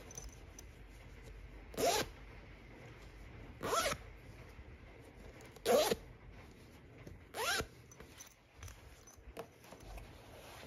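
A zipper on a black cloth tote bag pulled in four short strokes, about two seconds apart, each a quick rising zip.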